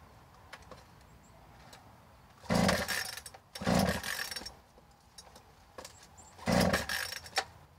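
Chainsaw being pull-started: three hard pulls on the recoil starter, the two-stroke engine turning over with each pull but not catching. The saw is a hard starter.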